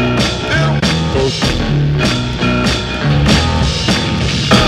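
Background rock music with a steady drum beat, bass and guitar.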